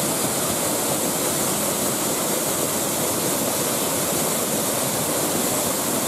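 Steady rush of a mountain waterfall pouring down a rock face and crashing into its plunge pool.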